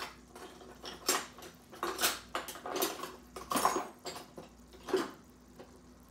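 Metal kitchen utensils and dishes clinking and knocking, about half a dozen separate strikes spread over a few seconds, typical of handling a strainer, spoon and bowls while straining hot jaggery syrup.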